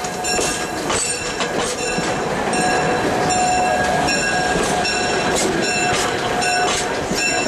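Budd RDC diesel railcar rolling slowly past close by: a steady running roar with a high-pitched wheel squeal held throughout, and wheels clicking and knocking over rail joints at irregular intervals.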